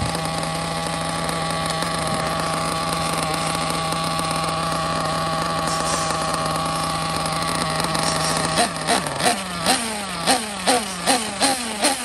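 Small 1/8-scale nitro buggy engine idling steadily at a high, buzzing pitch. About 8.5 seconds in it is blipped on the throttle, about nine quick revs that each rise and fall back.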